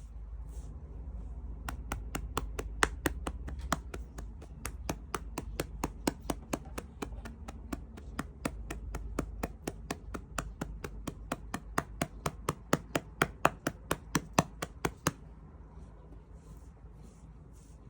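Rapid, even tapping by hand, about three to four taps a second, which starts about two seconds in and stops suddenly some thirteen seconds later, over a steady low rumble.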